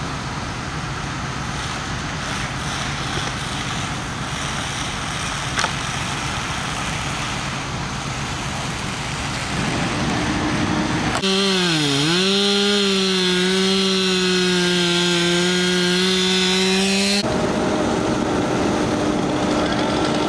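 Chainsaw running at high revs for about six seconds in the middle, its pitch dipping once and then holding steady, starting and stopping abruptly. Before it there is a steady rushing noise, and under the later part a low steady hum.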